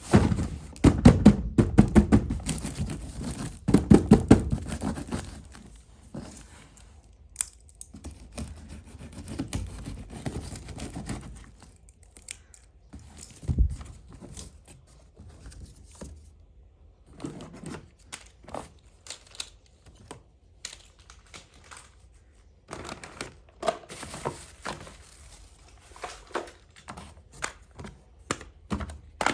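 Toy playset being unboxed by hand: packaging tearing and crinkling, with many small knocks and taps of plastic pieces. The knocks are densest and loudest in the first five seconds, then come scattered.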